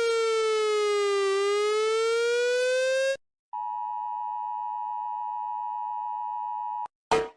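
Electronic emergency-alert siren sliding down in pitch and back up, cut off after about three seconds. After a short gap, a steady electronic alert tone holds for about three and a half seconds and stops with a click. Loud music starts right at the end.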